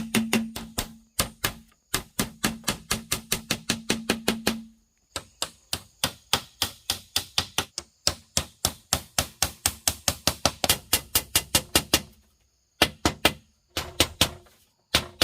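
Wood being chopped with an edged tool: quick, even strikes about three to four a second, in several runs broken by short pauses.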